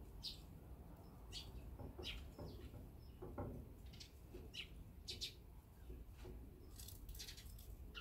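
Eurasian tree sparrows chirping at a seed feeder: short, separate chirps every second or so, bunching into a quicker run near the end.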